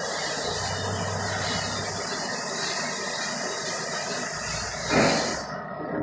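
Roll-over car wash machine running: a steady mechanical hiss and rush, with a louder swell about five seconds in.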